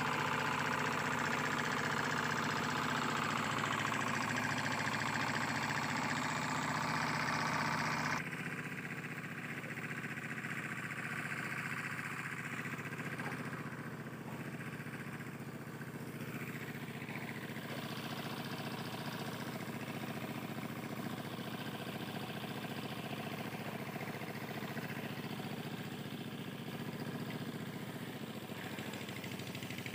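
An engine running steadily at an even speed. About eight seconds in it drops suddenly to a quieter, duller version of the same running sound.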